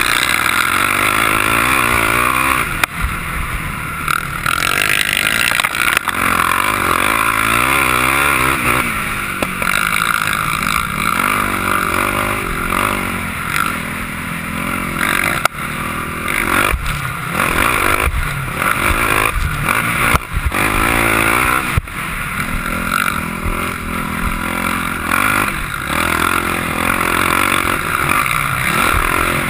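Sport quad's engine being ridden hard, heard close up from a camera on the quad: the pitch rises and falls over and over as the throttle is opened and closed. A few sharp knocks sound over the bumps.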